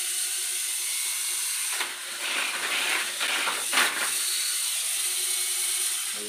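Tamiya mini 4WD car's small electric motor switched on and running at full speed in the hand, a steady high whine with gear and wheel noise, powered by the rechargeable AA battery under test. From about two to four seconds in, a louder rasping comes over it.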